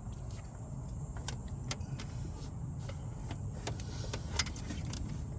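Scattered light clicks and rattles of hands handling hoses and plastic parts in a truck's engine bay, over a steady low rumble.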